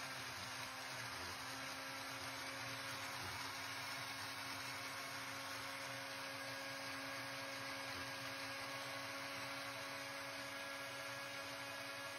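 Decen multifunction kitchen robot's blender running steadily at speed, its motor giving a constant whirring hum as it blends a wet, grainy mixture in the jug.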